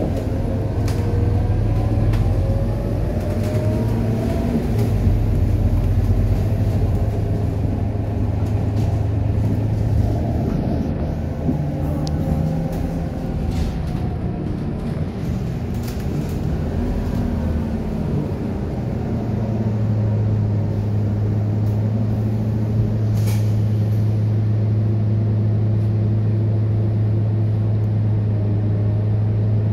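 Scania K230UB single-deck city bus heard from inside the cabin while moving: its diesel engine runs, rising and falling in pitch as it pulls away and eases off, then settles to a steady drone over the last ten seconds. Short rattles and clicks from the bus body come through throughout.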